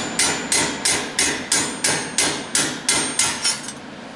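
Small hammer tapping a tight-fitting sheet-steel side plate into its slots, about a dozen quick metal-on-metal strikes at roughly three a second with a faint ring. The strikes stop near the end.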